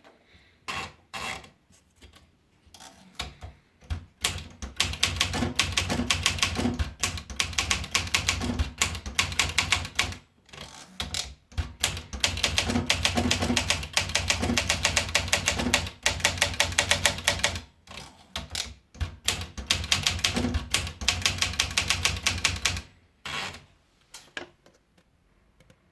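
Olympia Monica manual portable typewriter being typed on: fast runs of key strikes, broken by two short pauses, with a few scattered strikes at the start and near the end.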